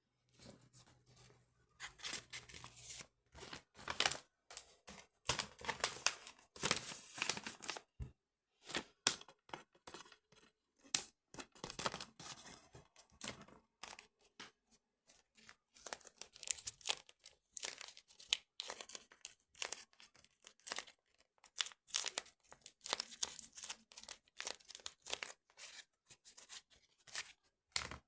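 Irregular crinkling and tearing noises from a thin material being handled and torn, in quick uneven bursts with short pauses.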